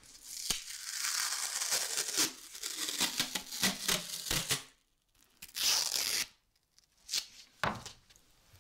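A strip of sanding cloth being torn, with crinkling: a long, rough rip of many quick strokes for about four and a half seconds, then one shorter rip and two brief ones near the end.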